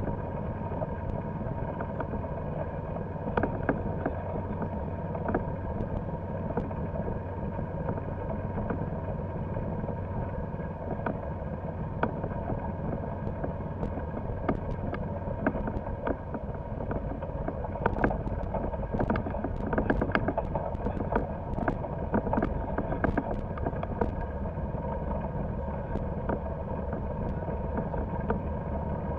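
Golf cart driving over grass: a steady motor sound with a low rumble, and frequent short rattles and knocks from bumps in the ground, thickest about two-thirds of the way through.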